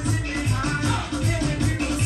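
Upbeat dance music with a steady bass beat, played for a game of musical chairs.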